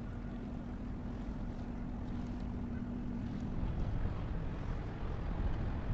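Low, steady rumble of a ship's diesel engine passing on the water, with a steady hum over it that stops about three and a half seconds in. Wind buffets the microphone.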